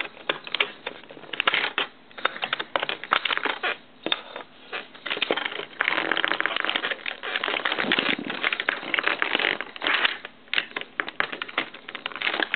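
Keycaps being pried off a computer keyboard with a pencil: a rapid, irregular run of plastic clicks, snaps and rattles, with a denser stretch of scraping about halfway through.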